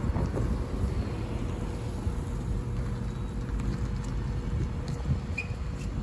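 Cars driving past on the road with tyre noise, over a low, fluctuating rumble of wind on the microphone.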